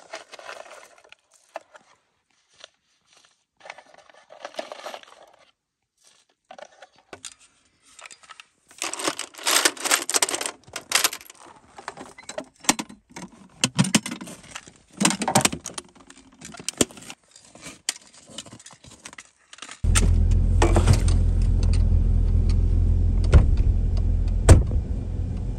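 Irregular jangling and clinking of handled gear, loudest in the middle. About twenty seconds in, a vehicle engine's steady low hum comes in suddenly and keeps running.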